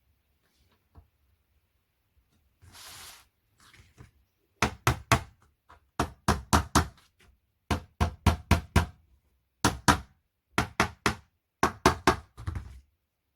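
Sharp knocks on the flat-pack bedside table's parts in quick bursts of four or five strikes, about seven bursts starting a few seconds in, after a short scraping rustle about three seconds in.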